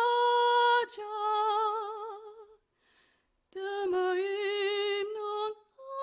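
A woman's solo voice singing unaccompanied, holding long high notes with vibrato. Two phrases are split by a pause of about a second, and a third begins at the end.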